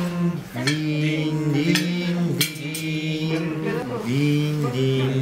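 Men's voices singing slow, drawn-out held notes of a melody, a Japanese Christmas song being rehearsed, with a few brief clicks over it.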